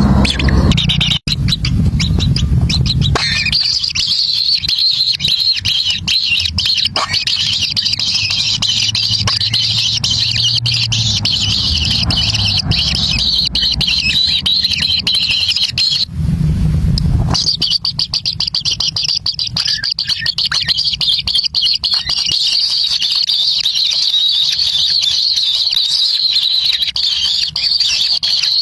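Steady, dense high-pitched chirping and chirring of birds, broken for about a second just past the middle by a low rumble.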